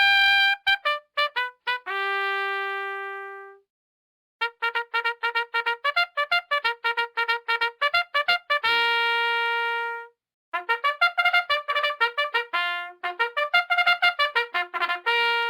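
Brass fanfare, trumpet-like: quick runs of short repeated notes, each run ending on a long held note that fades away, three phrases with brief pauses between them.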